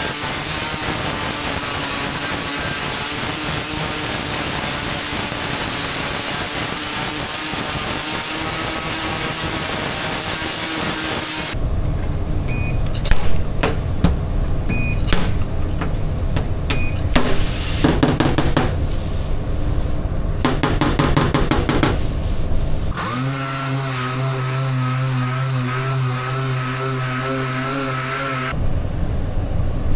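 An angle grinder grinds paint and metal off a car's steel tailgate, a steady harsh grinding for about the first eleven seconds. Then a stud-welder dent puller clicks and buzzes in short bursts, with a few short high beeps, as studs are welded on and the dent is pulled. Near the end a dual-action sander runs with a steady hum for about five seconds.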